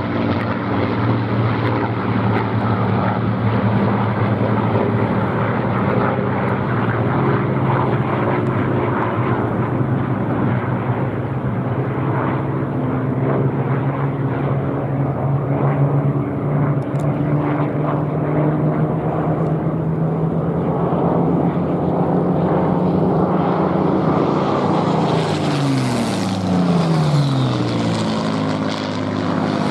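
Supermarine Spitfires' V12 piston engines running at low power as the fighters land and roll out, a steady propeller drone. Near the end one passes close by and its engine pitch slides down as it goes past.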